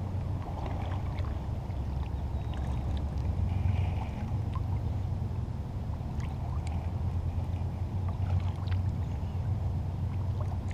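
A fishing kayak being paddled: water moving along the hull and the paddle blades dipping, under a steady low rumble, with a few faint scattered clicks.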